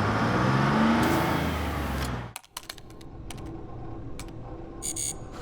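Vehicle engine sound effect accelerating, its pitch rising, then cut off abruptly a little over two seconds in. Quieter ambience follows with scattered clicks and a short high-pitched burst near the end.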